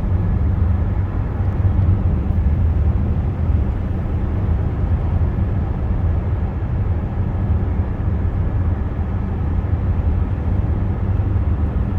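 Steady road noise heard from inside a moving car's cabin: a constant low rumble of tyres and engine.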